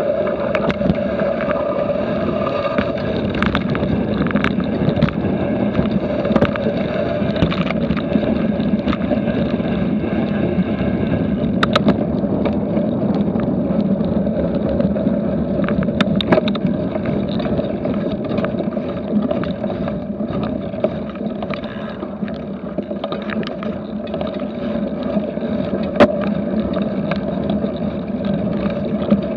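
A cyclocross bike ridden over dirt and leaf-strewn trail, picked up on an action camera: a steady rumble of tyres and wind on the microphone, with frequent clicks and rattles from the bike over bumps.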